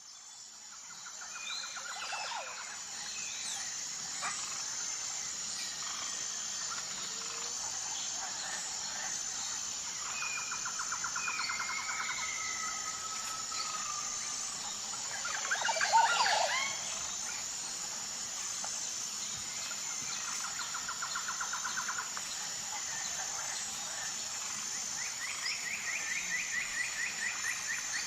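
Tropical forest ambience fading in: a steady high insect drone with a pulsing beat, over which birds call with fast trills and gliding whistles. One louder flurry of calls comes about halfway through.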